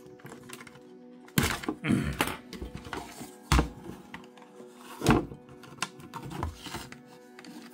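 Plastic housing and parts of a solar light being handled and worked at by hand: a series of irregular thunks and clicks. The sharpest knocks come about three and a half and five seconds in.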